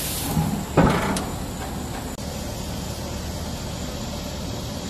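Food sizzling on a barbecue grill, then the grill's metal lid is shut with a single thud a little under a second in. After that the sizzle is muffled to a low steady hiss under the closed lid.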